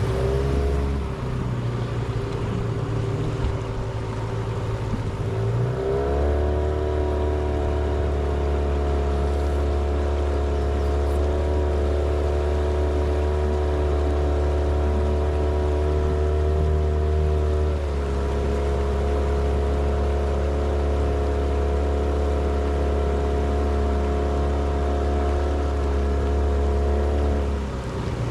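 Small boat's outboard motor running under way. It runs low for the first few seconds, is throttled up to a steady higher speed about six seconds in, eases slightly about two-thirds through, and drops back toward idle near the end.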